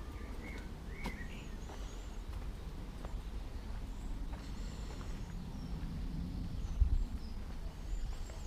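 Small birds chirping, with short scattered calls, over a steady low outdoor rumble. A single low thump comes about seven seconds in.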